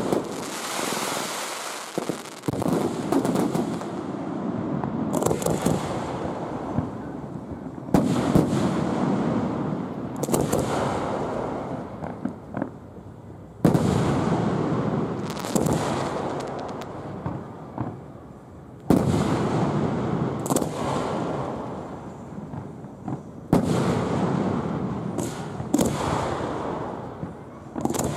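Aerial fireworks shells bursting, recorded from about 100 ft from the launch site: about ten sharp bangs a few seconds apart, each trailing off over a second or more.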